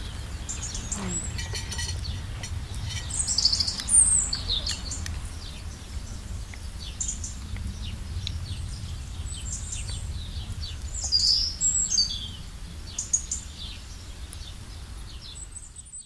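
Small birds chirping and calling in quick, high trills and tweets, busiest about four seconds in and again around eleven seconds, over a steady low rumble.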